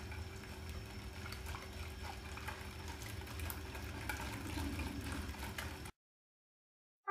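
Wire whisk beating a thin milky ice-cream mix fast by hand in a plastic bowl: a steady, soft liquid swishing with light clicks of the whisk against the bowl. It stops abruptly about six seconds in.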